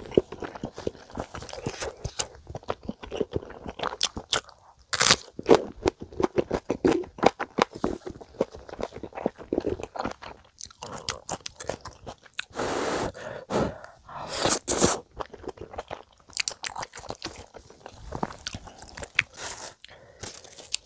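Close-miked chewing of a mouthful of spicy stir-fried chicken (dakgalbi): a dense run of wet mouth clicks and crunching, with a couple of longer noisy stretches past the middle.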